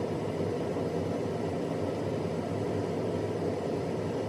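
Steady background hum and hiss of room noise, even throughout with no distinct sounds standing out.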